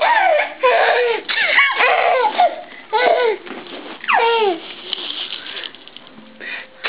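Baby laughing in a run of high-pitched giggles and squeals, with a long falling squeal about four seconds in, then trailing off into quieter sound.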